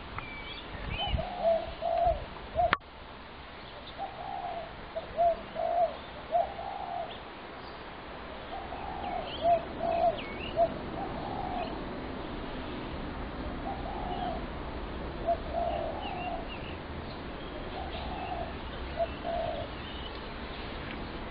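Spotted doves cooing, short phrases of several soft notes repeated every few seconds, with faint chirps of smaller birds above them and a single sharp click about three seconds in.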